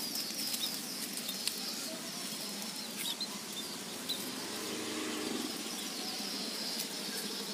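Outdoor background noise with a few scattered faint, short bird chirps, and a faint murmur of a distant voice around the middle.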